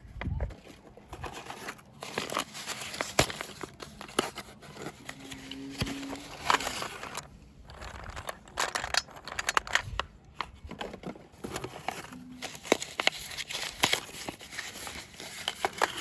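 Packaging being handled and opened: irregular crinkling and tearing rustles broken by sharp clicks.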